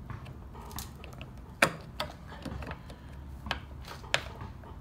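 A handful of light clicks and knocks as a Custom Dynamics Bullet Ringz LED insert is pushed and twisted by hand into a motorcycle bullet turn signal housing, the sharpest clicks about a second and a half in and near the end.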